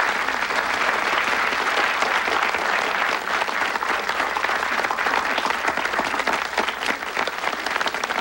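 An audience applauding steadily: many people clapping at once.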